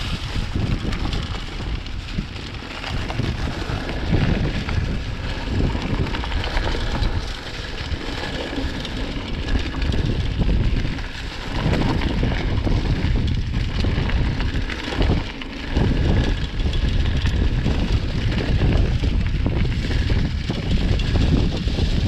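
Wind buffeting the microphone over the rumble and rattle of bicycle tyres running fast down a rough trail. The noise rises and falls with the bumps and dips briefly twice, about eleven and fifteen seconds in.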